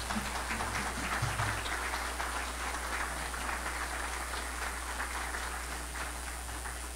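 Audience applauding, a steady patter of clapping that eases a little toward the end.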